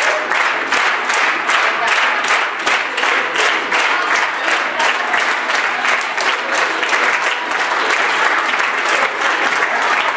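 Audience clapping in time, a few claps a second, over a haze of crowd noise and voices.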